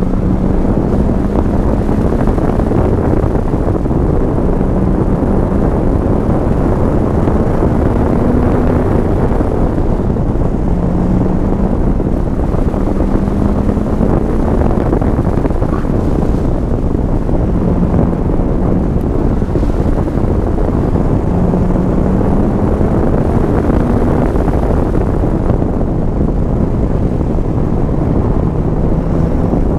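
C5 Corvette Z06's LS6 V8 heard from inside the cabin while being driven in third gear, its note climbing gently for a few seconds and dropping back, over and over, on top of steady road and tyre noise.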